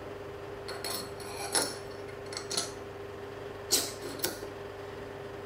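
Parts of a disassembled camera lens clinking and scraping as they are handled: a handful of light clicks and clinks, the sharpest about three and a half seconds in.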